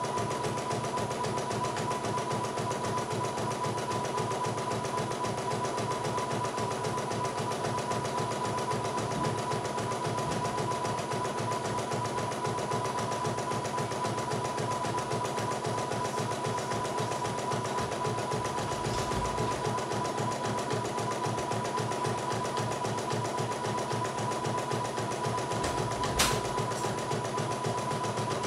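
CNY E900 portable embroidery machine stitching a design: a fast, even needle clatter with a steady high tone under it. A single sharp click comes near the end.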